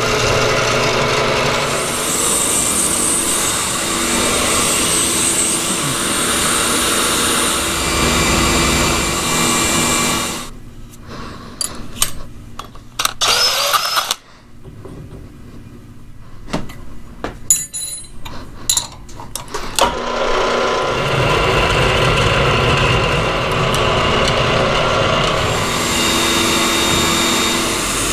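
Milling machine end mill cutting heat-treated 4140 steel on a rotary table, a steady cutting noise. About ten seconds in it gives way to a quieter stretch of sharp metal clanks and knocks, then cutting starts again about twenty seconds in.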